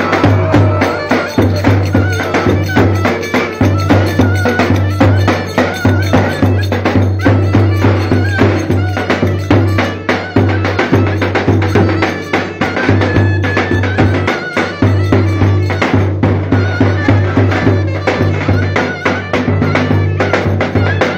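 Traditional Turkish folk dance music: fast, dense percussion under a wavering high melody and a steady pulsing low bass.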